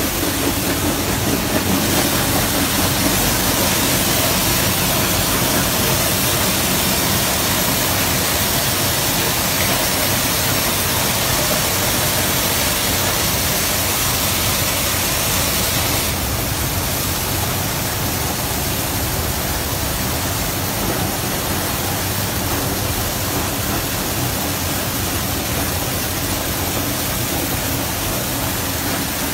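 Go&Go automatic motorbike wash machine running: water spraying over the bike in a loud, steady hiss, which eases a little about halfway through.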